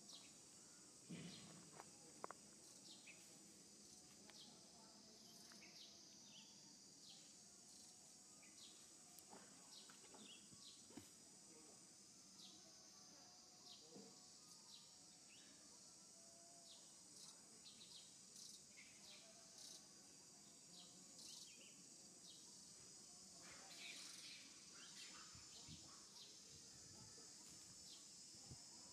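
Faint outdoor ambience: a steady, high-pitched insect drone, with scattered short chirps and small clicks.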